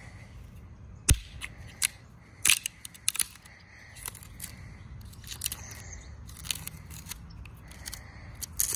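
Screwdriver prying and scraping at a plastic shipping plug on top of a Drummond shallow well pump: a run of sharp clicks and snaps, the loudest about a second in.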